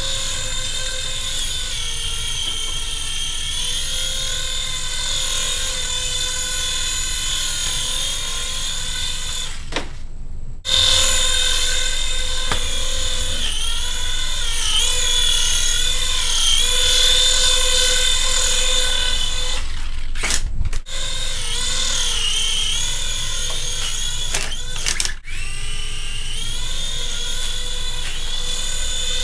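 Hasbro remote-control Republic gunship toy's small electric motors and propellers running with a steady high whine that wavers slightly in pitch as the throttle changes. It cuts out briefly about ten seconds in, and again around twenty and twenty-five seconds, each time starting up again; it is louder after the first restart.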